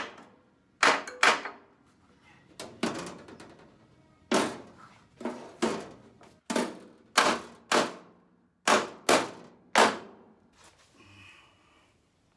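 Sharp knocks on a 1967 VW Beetle's replacement steel floorpan as it is worked into position: about a dozen blows, singly and in quick pairs, each with a short ringing tail, stopping near the end.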